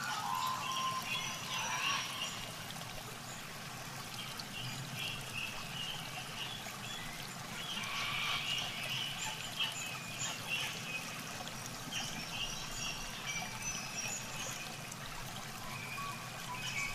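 Water splashing and trickling as hands grope through shallow muddy water, with background music.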